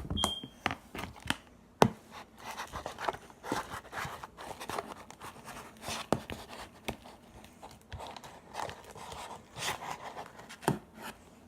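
Hands working with slime and its containers at a table: irregular clicks, scrapes and crinkling as the slime is mixed and handled.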